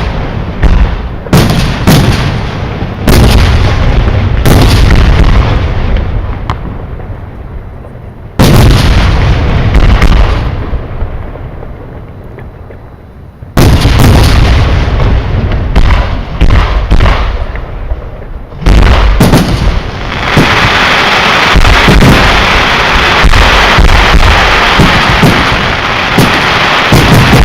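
Fireworks display: aerial shells bursting in loud bangs every few seconds, each followed by a long rolling echo that fades away. About two-thirds of the way through it turns into a dense, continuous crackle and barrage of bursts.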